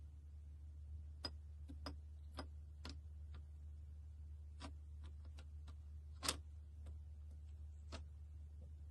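Faint, scattered clicks and ticks of ice cubes shifting and knocking against a tall drinking glass as milk is poured slowly over them, about seven in all, the loudest a little past the middle. A steady low hum runs underneath.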